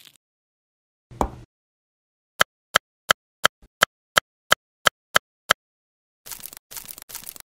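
Cleaver blade tapping down on a bamboo cutting board: one knock, then a quick run of about eleven sharp clicks, about three a second. Near the end come two brief rustles, as of small sugar pearls being swept across the board.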